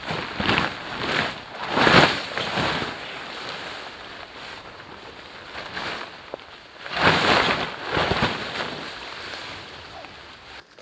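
Heavy tent fabric swishing and rustling as it is lifted, shaken out and spread on the grass, in several irregular whooshes, loudest about two seconds in and again around seven to eight seconds.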